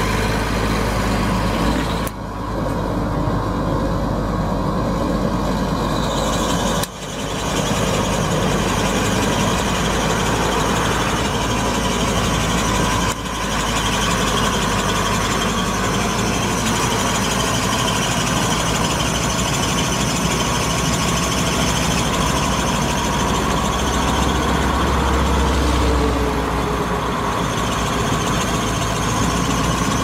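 Case IH 7140 Magnum tractor's six-cylinder diesel engine running steadily as the tractor is driven, with brief breaks in the sound about 2, 7 and 13 seconds in.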